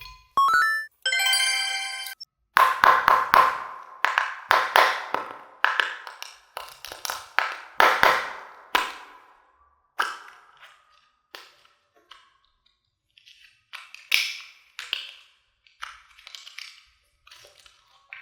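A short rising whistle and a held chime-like tone, then a quick run of sharp taps and clicks with a brief ring to each, thinning out after about nine seconds.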